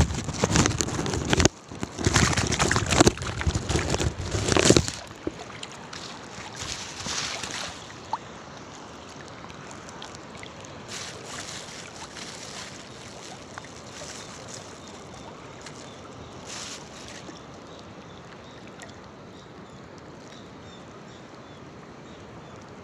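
Wind and sea water noise: heavy, rough gusts for about the first five seconds, then a steady, even hiss.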